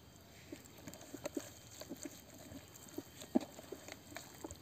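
Hands rubbing and pressing seasoning into the skin of a whole raw chicken on a wooden board: irregular soft wet squelches and slaps, the loudest about three and a half seconds in.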